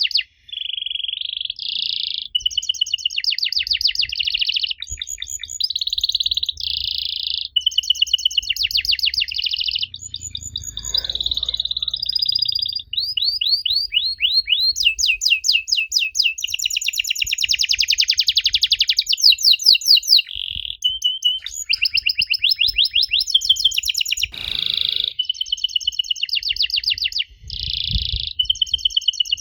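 Canary singing a long, continuous song of rapid trills and quickly repeated high notes. The song changes speed from phrase to phrase, with only brief pauses between phrases.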